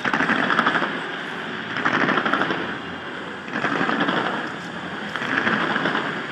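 Fireworks going off in rapid strings of bangs and crackles, in about four waves less than two seconds apart.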